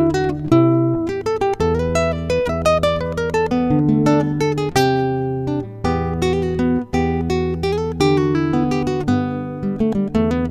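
Music: acoustic guitar playing a run of plucked notes over chords.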